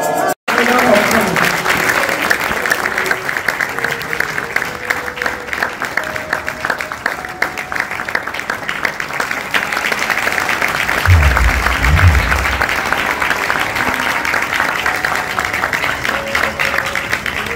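A large audience applauding steadily, with music faintly underneath. Two low thumps come about two-thirds of the way through.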